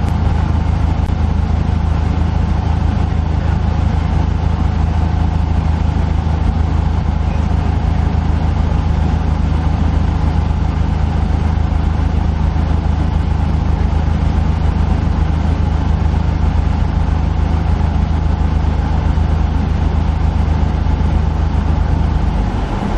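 Cessna's single piston engine and propeller droning steadily, heard from inside the cockpit. The engine note shifts just before the end.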